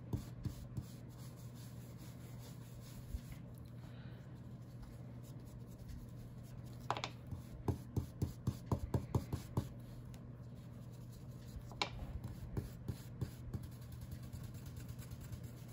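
Round foam ink blending tool rubbing and dabbing distress ink onto paper through a plastic stencil: faint, soft scuffing, with a run of quick taps about eight to nine and a half seconds in and a couple of sharper clicks. A steady low hum runs underneath.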